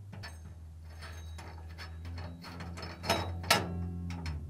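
A 5 mm Allen wrench unscrewing the steel bolt from a dryer drum's bearing: a run of small metal clicks and scrapes, with two louder knocks about three and three and a half seconds in, over a low steady hum.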